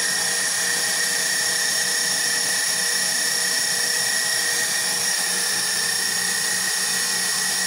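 KitchenAid Professional 5 Plus stand mixer running steadily on high speed, its dough hook kneading bread dough: an even motor whine.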